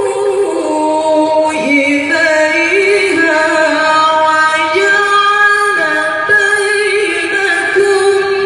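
A woman's voice reciting the Quran in slow melodic style, holding long drawn-out notes that waver and step up and down in pitch without pausing for breath.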